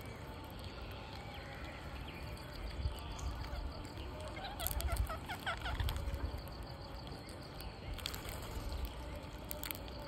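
Indian ringneck parakeets calling: a quick run of short, shrill calls about halfway through, over a low rumble.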